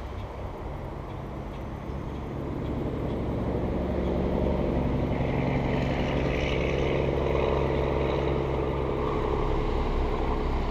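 A motor's steady drone, even in pitch, growing louder about three seconds in and then holding.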